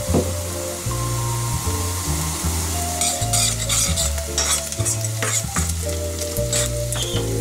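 Chopped onion sizzling as it sautés in olive oil in a stainless pot. From about three seconds in, a metal spoon stirs and scrapes the pot bottom in quick strokes. Background music with low notes runs underneath.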